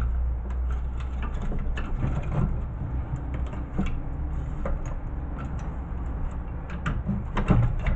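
Screwdriver prying and twisting at an aluminum piece on a CRT TV circuit board: scattered small metallic clicks and scrapes, over a steady low hum.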